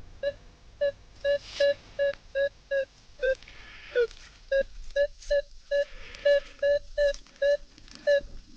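Minelab Manticore metal detector beeping over a buried target as the coil is swept back and forth: a run of short mid-pitched tones, about two a second, a few of them sliding down in pitch.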